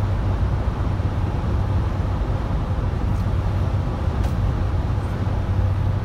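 Car driving along an open road, heard from inside the cabin: a steady low hum of engine and tyre noise.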